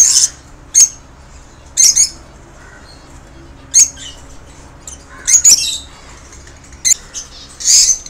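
Lovebirds giving short, shrill squawking calls, about eight of them at irregular intervals, some in quick pairs.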